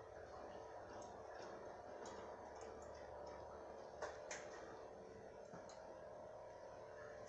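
Faint scattered clicks and ticks, the two sharpest about four seconds in, over a steady low hum of room tone.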